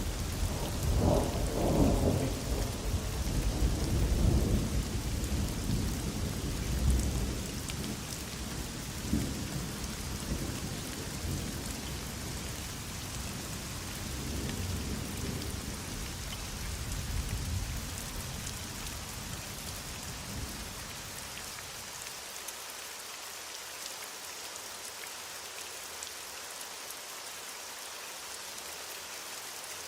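Heavy rain falling steadily, with a long rolling thunder rumble that begins at the start, is loudest in the first few seconds, and dies away over about twenty seconds, leaving only the rain.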